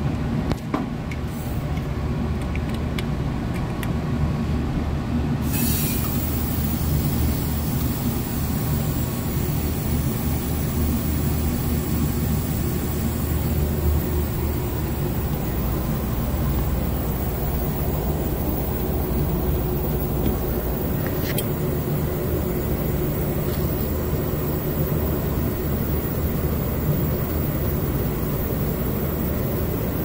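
Steady hiss of gas flowing through the gauge hoses, starting suddenly about five seconds in over a low steady rumble: the condensing unit's circuit being pressurized for a standing-pressure leak test.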